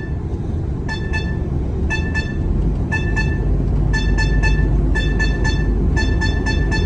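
Inside a KAMAZ K5 truck cab while driving: a steady engine and road rumble with clusters of short, high-pitched chirps about once a second, coming thicker and faster near the end. The chirping is an unidentified noise the driver is asking about.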